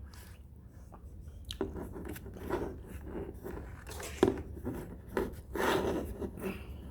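Faint irregular scraping, crunching and clicking handling noises over a low steady hum in a small room, with a sharp click about four seconds in and a longer rustle near six seconds.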